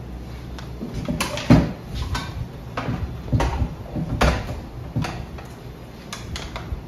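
Irregular knocks and clicks of plastic parts being handled as a water filter cartridge is unscrewed and taken out of its housing, the loudest knock about a second and a half in.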